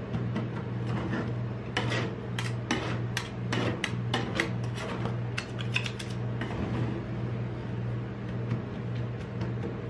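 Two metal spatulas scraping and tapping on a frozen steel rolled-ice-cream plate as chocolate pieces are chopped into the cream and spread thin. The strokes come thick and fast over the first six seconds and thin out after, over a steady low hum.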